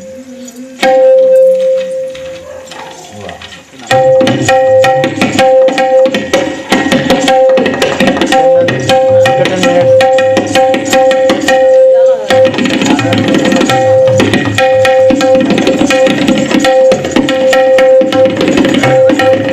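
Instrumental passage of a qawwali-style devotional song: hand drums played fast and busily over a steady held note, the drumming coming in about four seconds in.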